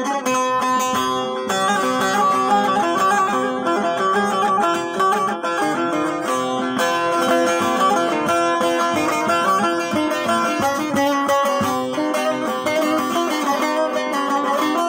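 Bağlama (long-necked saz) played solo: an instrumental passage of rapid, continuous plucked notes.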